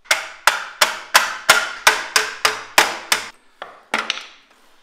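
Hammer blows on the steel parts of a Toyota FJ40 front bench seat, about ten regular strikes at roughly three a second, each with a short metallic ring, then a few lighter taps near the end.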